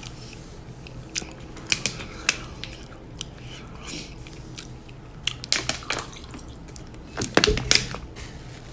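Close-miked chewing of crunchy shrimp tacos: irregular crisp crunches and mouth clicks, coming in clusters about a second in, around five to six seconds in, and again about seven seconds in.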